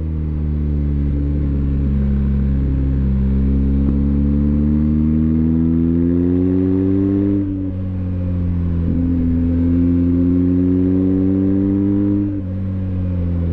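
BMW R1250GS Adventure's 1254 cc boxer twin pulling hard under acceleration, its pitch climbing steadily. The pitch drops sharply twice, about seven seconds and twelve seconds in, as it shifts up a gear, then climbs again.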